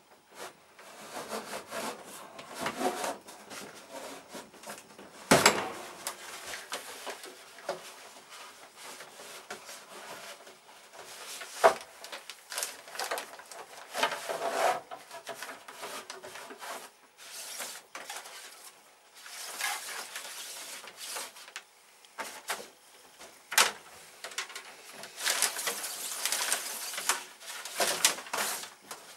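Hands working wiring at a plastic-sheet-lined shed ceiling: irregular rustling and clicking, with a few sharp knocks about 5, 12 and 24 seconds in and a longer rustle near the end.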